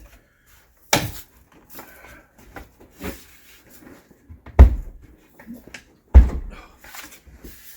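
Wooden knocks and thumps as trim boards are handled and set against a window opening: a sharp knock about a second in, then two heavier thumps a second and a half apart, with light clattering between.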